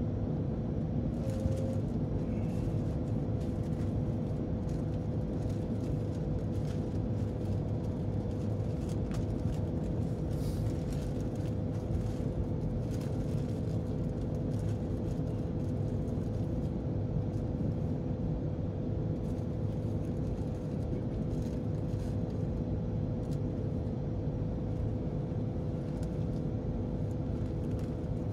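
Steady low rumble inside the cabin of an Airbus A350-900 airliner, with one constant humming tone over it and a few faint ticks.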